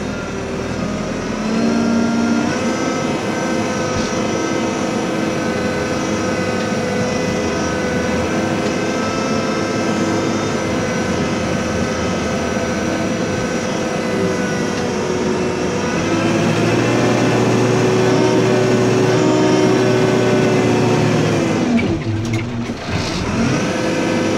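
Backhoe loader's diesel engine running steadily under working load, with a steady whine over it. About two-thirds of the way through the engine revs up harder; near the end it briefly drops away and then picks up again.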